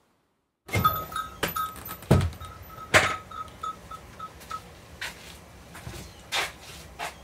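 A door being opened as someone steps inside: a run of sharp knocks and clatters begins after a moment of silence. A short high squeak repeats about three times a second and dies away over a few seconds, and a few more knocks follow.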